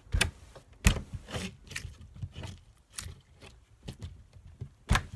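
Slime being squeezed and stretched in the hands, giving an irregular run of sticky pops and clicks; the two loudest about a second in and near the end.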